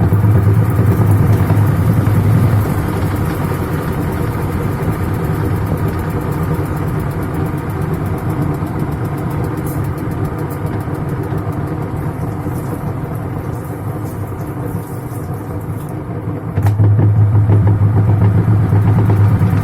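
LG WF-T7516HN top-load washing machine running on its spin setting with a steady low mechanical hum and drone. It grows louder for the first couple of seconds and again near the end. The noise comes from a faulty gearbox, which the technician says makes noise and lets the pulsator turn when it should stay still at the start of the spin.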